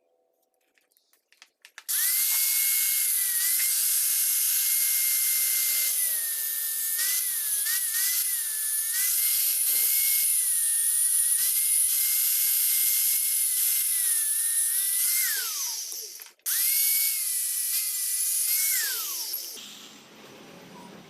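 Angle grinder cutting through metal pipe with a cutting disc. The motor's whine sags in pitch each time the disc bites under load. About 15 seconds in it is switched off and spins down, is started again briefly, then winds down once more near the end.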